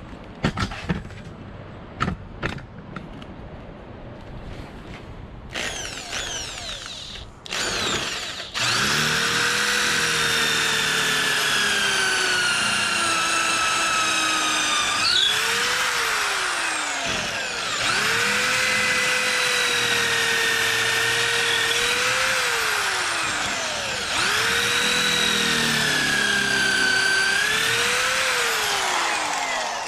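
Corded electric drill boring out the broken hickory handle wedged in an axe head's eye, running in long spells with its motor pitch sagging under load and climbing again as it eases off. A few sharp knocks and clicks come in the first seconds, with short drill bursts before it settles into steady cutting.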